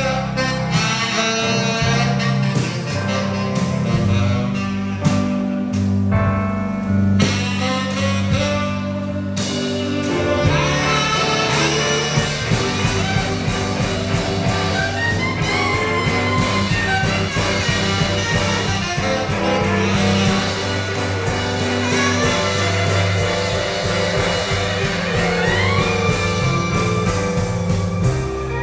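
Live blues band: a saxophone solo over a walking bass line, with an electric guitar taking the lead after about ten seconds and playing sliding notes.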